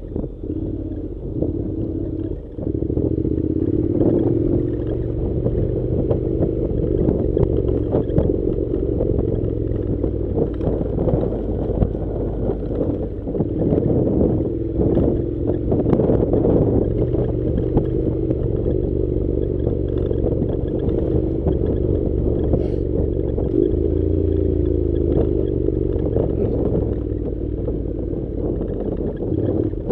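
Honda NC700's parallel-twin engine running steadily as the motorcycle rides over a gravel track, with scattered knocks, scrapes and rattles from the tyres and bike on the loose stones.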